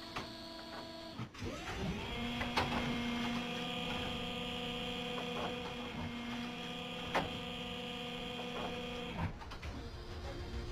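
Electric motors whirring steadily as the mechanisms of a motorised weapon platform with a gun turret move. The whir starts about two seconds in and cuts off suddenly a little after nine seconds, with a sharp click at about two and a half seconds and another at about seven seconds.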